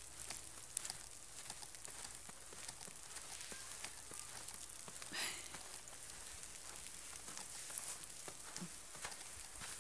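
Falling snow pattering as a steady faint hiss with many small ticks, with a brief wavering high whistle about halfway through.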